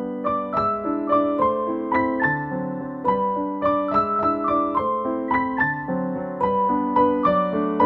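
Background piano music: a gentle melody of struck notes, about three a second, over held chords.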